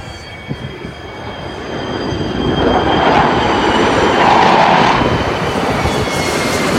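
Jet noise of four military jets in formation passing overhead, swelling from about two seconds in to a peak around the middle and staying loud.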